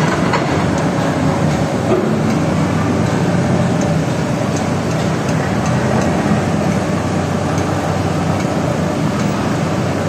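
Sany rotary piling rig drilling a bore pile: its engine and hydraulic rotary drive run steadily under load as the kelly bar turns down into the cased hole, with scattered light clicks and knocks over the heavy mechanical noise.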